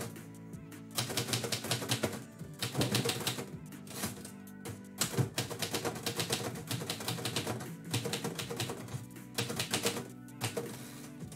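Manual typewriter being typed on in quick runs of sharp key strikes with short pauses between them, over background music with steady held tones.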